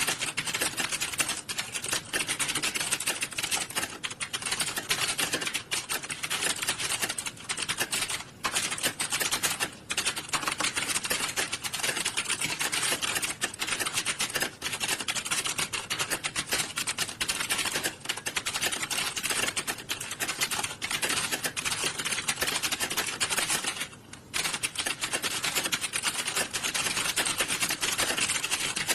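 Many computer keyboards typed on at once during a typing test, making a dense, continuous clatter of keystrokes with a few brief lulls.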